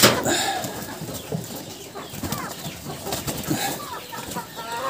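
Rhode Island Red hens clucking, with the rustle of plastic netting being handled and a sharp knock right at the start; the calls grow stronger near the end.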